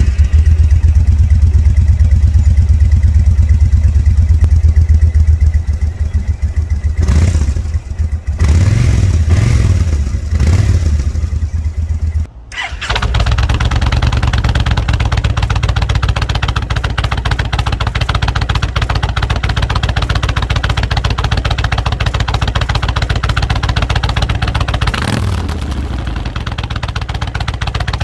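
Kawasaki VN1600 V-twin idling through its stock exhaust, revved up and down a few times between about seven and twelve seconds in. After a sudden cut about halfway through, the same engine idles through Vance & Hines pipes with the baffles fitted, with one short rev near the end.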